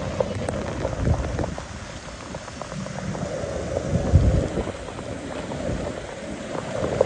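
Floodwater from the reservoir's opened spillway gates rushing steadily. Wind buffets the microphone in low thumps, about a second in and about four seconds in.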